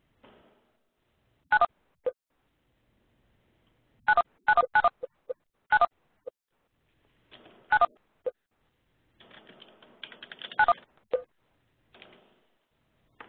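Telephone keypad (DTMF) tones on a conference call line: about seven short key-press beeps at irregular intervals, several followed by a brief lower blip. A stretch of crackling line noise comes about two-thirds of the way in.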